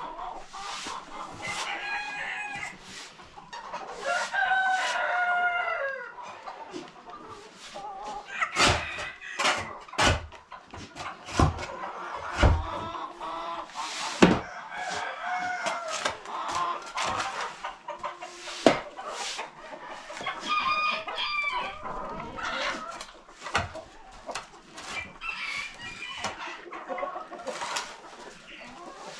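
Free-range chickens clucking, with a rooster crowing about four seconds in and again near twenty seconds, over scattered sharp knocks and clicks.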